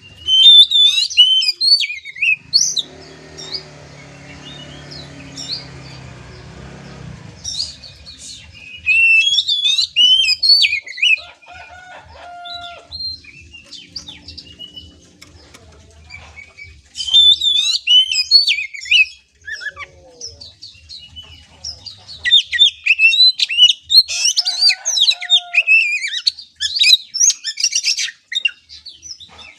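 Oriental magpie-robin (kacer) singing in rapid, varied chattering phrases: a short burst at the start, another about eight seconds in, and near-continuous song from about the middle on.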